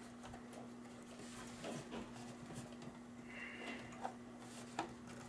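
Faint knocks and scrapes of a Cooler Master GX 750 power supply's metal housing being worked into a computer case, with a few small sharp clicks, over a steady low hum.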